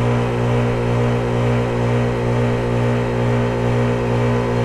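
A 2001 Trane XE1000 5-ton heat pump's reciprocating compressor running with a steady low hum during a defrost cycle.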